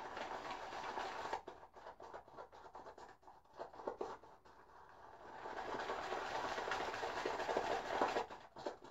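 Omega 80266 boar-bristle shaving brush swirled through soap lather in a tub: a wet, scratchy rasp. It comes in short, uneven strokes at first and runs steadier and louder in the last few seconds, as a freshly added teaspoon of water is worked into the lather.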